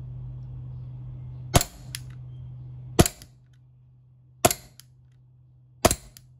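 VFC Glock 42 gas blowback airsoft pistol fired with no BBs loaded: four sharp cracks as the gas drives the slide, about a second and a half apart, each followed by a fainter click.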